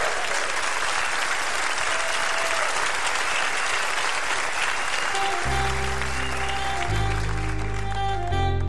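Studio audience applauding. About five and a half seconds in, slow accompaniment music begins under the fading applause, with deep held bass notes.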